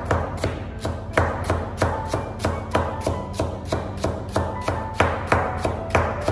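Chinese cleaver chopping potato slices into fine shreds on a wooden cutting board, in a steady run of sharp knocks about three a second.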